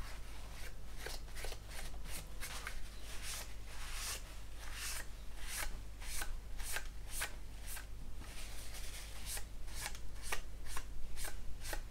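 A paper tissue rubbed in repeated short strokes across the plastic skin of a model aircraft wing, a dry rustling swish with each stroke, as a dried enamel wash is wiped back to leave streaks.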